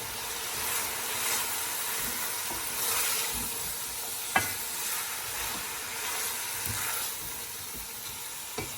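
Onions and ginger-garlic paste sizzling in hot ghee in a pan while being stirred, with a sharp knock of the utensil against the pan about four seconds in and a lighter one near the end.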